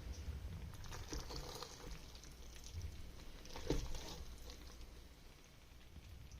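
A spoon scooping thick, cheesy pasta out of a pot and serving it, with faint soft scrapes and squelches and one louder knock of the spoon against the pot or bowl about halfway through.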